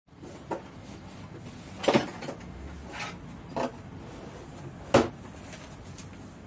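Short clacks and knocks of a hard plastic tool case and the tool pieces in it being handled, about six in all. The loudest come as a double about two seconds in and a single sharp one about five seconds in, over a steady low hiss.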